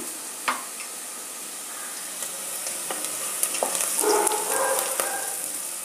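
Sliced onions and green chillies sizzling in hot oil in a non-stick kadai, frying for a tempering, with a spatula scraping and stirring them now and then.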